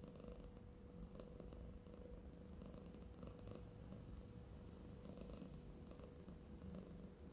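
Domestic cat purring softly and steadily.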